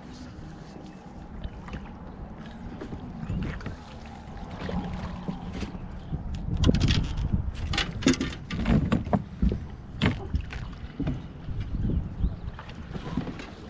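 Steady low rumble of wind and water around a small fishing boat. From about six seconds in comes a run of sharp knocks and rattles as gear and the boat are handled while fighting a hooked blue catfish.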